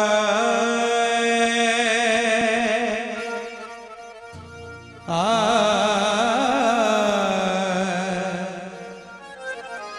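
A male singer sings long, drawn-out devotional bhajan notes with a wavering vibrato through a microphone and PA. One phrase fades out about three and a half seconds in, a new phrase enters about five seconds in, and it trails off near the end.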